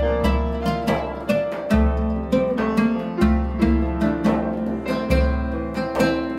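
Instrumental music: a plucked string instrument picking notes in a steady pattern over deep bass notes that change every second or two.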